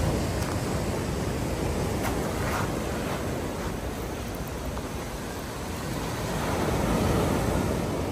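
Sea surf washing onto a beach as a steady rush, with one wave swelling louder and breaking about six to seven seconds in. Wind rumbles on the microphone.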